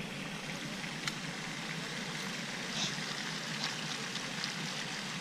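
Steady outdoor background noise with a few faint clicks and ticks scattered through it.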